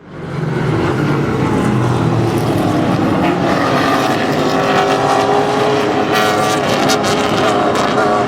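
Racing car engines running hard on the circuit. The sound fades in quickly at the start, then holds loud and steady with shifting engine pitch.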